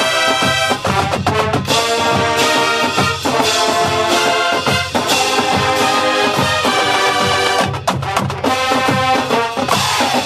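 High school marching band playing a brass arrangement: trumpets and trombones over steady drum beats.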